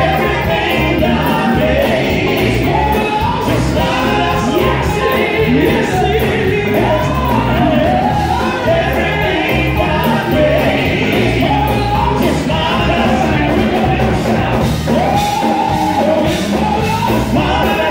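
Live gospel quartet music: a lead singer's amplified voice over the group's backing vocals, with drums and keyboard accompaniment.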